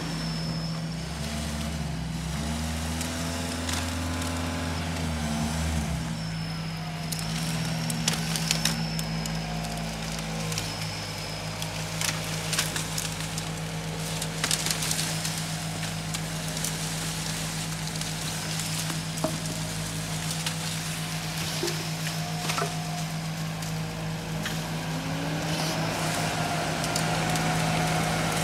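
Diesel engines of a rear-loader garbage truck and a tractor running with a steady hum. Their pitch rises and falls as they rev, and one climbs steadily in the last few seconds. Scattered sharp knocks and cracks sound over them.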